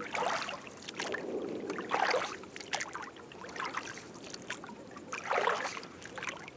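Oars pulling through calm lake water from an inflatable rowboat: several splashing swishes a second or two apart, with water trickling off the blades.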